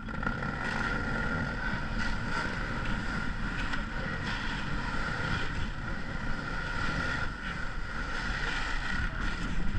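Wind buffeting the microphone with a steady rumble, with a faint steady whine above it, out on open water in an ice canoe.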